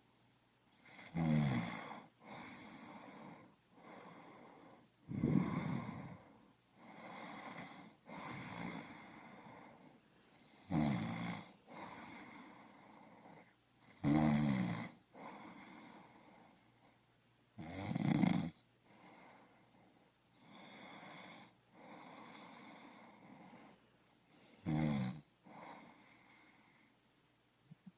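Snoring: a short, loud snore on each breath in, with a low buzzing pitch, followed by a softer, longer breath out, repeating about every three to four seconds. Some breaths are much louder than others, with six loud snores in all.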